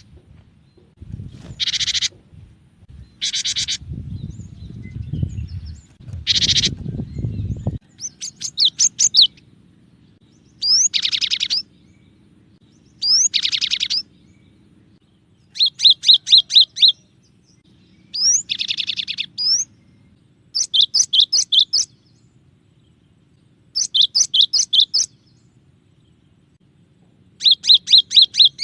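Cinereous tit (gelatik batu) singing: repeated short phrases of quick, high, ringing notes, each about a second long, with pauses of one to two seconds between. A low rumbling noise lies under the first several phrases. It stops abruptly about eight seconds in, leaving a faint steady hum.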